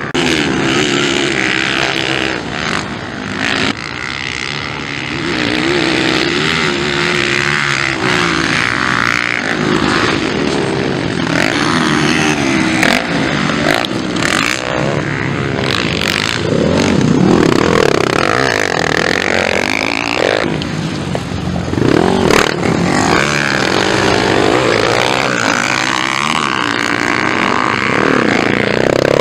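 Several motocross bikes racing past, their engines revving up and down as the riders work the throttle and shift, with the pitches overlapping and rising and falling throughout.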